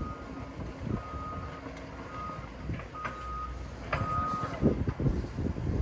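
A heavy demolition machine's reversing alarm beeping, a single high tone about once a second, over the low rumble of its diesel engine. A few knocks of debris or metal, the loudest near the end.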